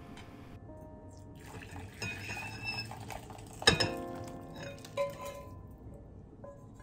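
Pho broth and rice noodles poured from an enamel saucepan into a ceramic bowl: a soft splashing pour, then a sharp clink about three and a half seconds in and a lighter one a second later, over soft background music.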